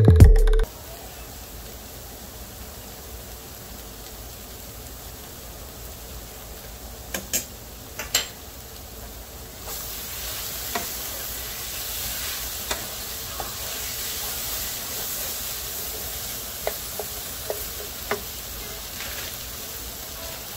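Sliced sausage and onions sizzling in a frying pan, with a few taps and scrapes of a wooden spatula stirring them. The sizzle grows louder about ten seconds in.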